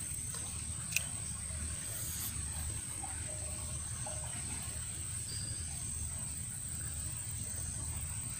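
Steady high-pitched drone of insects, over a low rumble, with a single sharp click about a second in.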